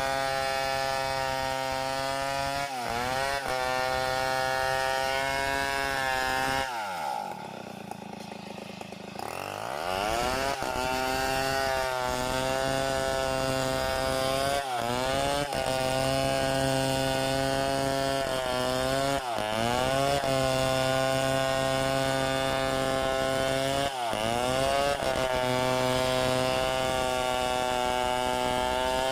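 Chainsaw running at high revs through wood, its pitch sagging briefly and recovering every few seconds. About a quarter of the way in it drops off for a couple of seconds, pitch and level falling, then revs back up.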